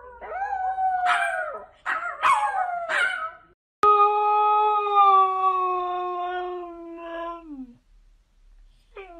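A small long-haired dog howls in four short yowls that slide up and then down, over about three and a half seconds. Then a white spitz-type dog howls one long howl of about four seconds that slowly drops in pitch, and starts another short falling howl near the end.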